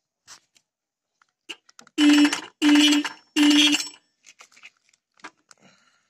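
Motorcycle electric horn sounding three short, loud blasts in quick succession as the freshly oiled horn button on the handlebar switch is pressed, with small clicks of the switch before and after.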